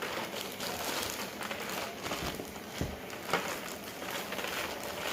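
Scattered light clicks, taps and rustles of kitchen work, a few small knocks among them.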